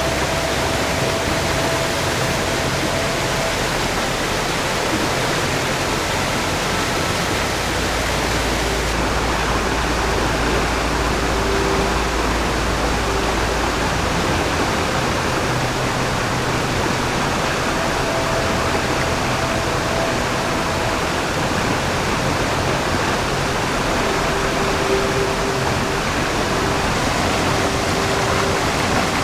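Mountain stream rushing over rocks and rapids: a steady, loud wash of water.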